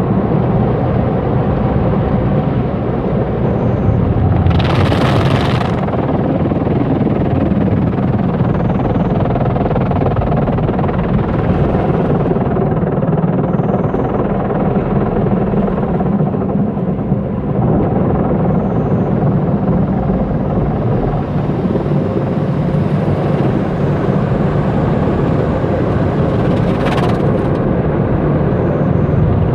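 Steady low rumble of car-wash machinery, with short loud hissing bursts about five seconds in and again near the end.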